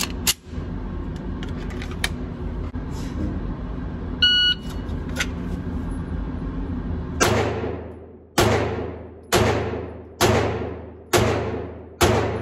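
Six 9mm shots from a Canik SFX Rival pistol, about one a second, beginning about seven seconds in, each ringing out in the reverberant indoor range. Before them come a few sharp handling clicks and a short beep over a steady low hum.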